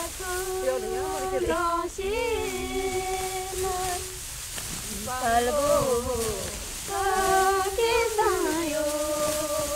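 Wheat harvesting folk song sung by a solo voice in long held notes that slide and waver at the ends of phrases. Three phrases are broken by short pauses about four and seven seconds in, over a faint steady hiss.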